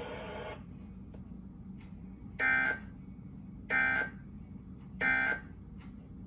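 Emergency Alert System end-of-message data bursts on a TV broadcast: three short, harsh digital buzzes about 1.3 seconds apart, the SAME 'NNNN' code that closes the alert.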